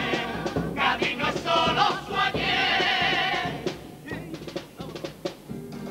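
Male carnival comparsa chorus singing in harmony to Spanish guitar accompaniment, with a held, wavering chord that breaks off about three and a half seconds in. Quieter, sharp guitar strokes follow.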